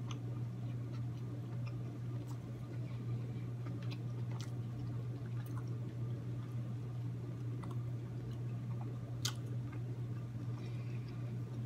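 Close-up chewing of a mouthful of boiled seafood: soft wet squishes and small mouth clicks, one sharper click about nine seconds in. A steady low hum runs underneath.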